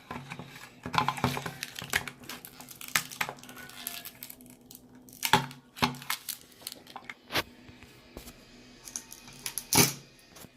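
Plastic toy packaging being handled and twisted open: scattered sharp clicks and knocks of hard plastic, with crinkling of wrappers in between.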